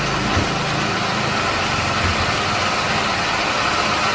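Cotton candy machine running steadily: an even whirring hiss with a faint high hum over it.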